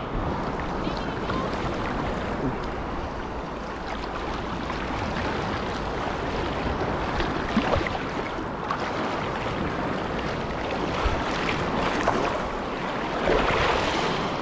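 Gulf surf water lapping and sloshing right around a wader, picked up by a camera held at the waterline. It gets louder and splashier near the end.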